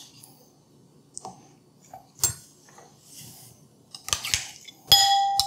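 Metal measuring cup and spoon tapping and scraping against a ceramic bowl as sour cream is knocked out. A few light clicks come first, then a run of clinks about four seconds in. It ends in a loud knock near the end, after which the metal cup rings.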